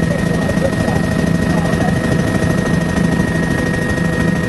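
Helicopter in flight heard from inside the cabin: steady engine and rotor noise, with a constant high whine over a low drone that pulses.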